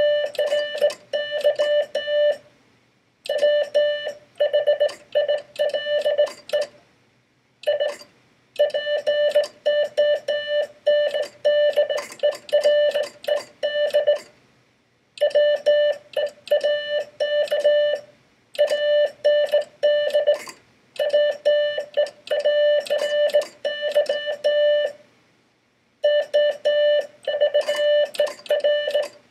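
Morse code sent by hand on a Vibroplex semi-automatic bug key: a single-pitched sidetone beeping in rapid dots and longer dashes, each with a sharp click, spelling out the text of Poe's The Raven. Runs of characters are broken by gaps of about a second between words.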